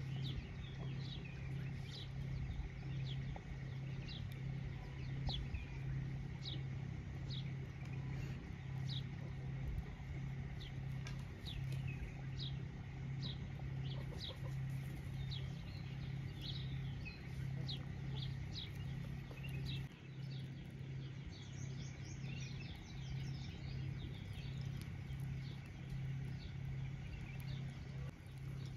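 Birds chirping, short high notes repeated about once a second, over a steady low pulsing hum.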